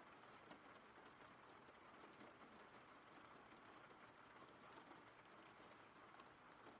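Faint steady rain: a soft, even hiss with light scattered drop taps.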